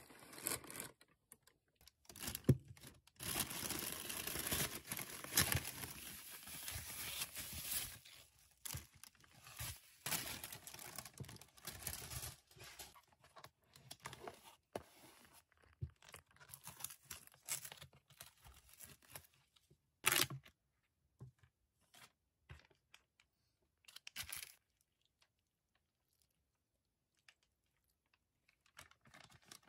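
Takeaway food packaging being unwrapped by hand: a plastic carrier bag and plastic film crinkling and tearing densely for the first ten seconds or so, then scattered rustles and light taps of the paper box and plastic bowl, with a sharper knock about twenty seconds in.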